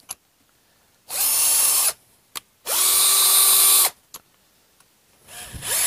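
Bosch PS31 12V Max cordless drill/driver whirring in two short trigger pulls of about a second each at a steady pitch, then spinning up again near the end, rising in pitch.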